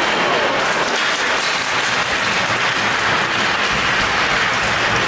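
Crowd applauding: steady clapping from many hands.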